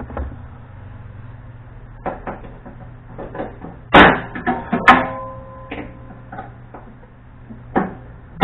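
Metal clanks and knocks from hand work on a car body, a few scattered hits with the two loudest about four and five seconds in, the second leaving a short ringing tone.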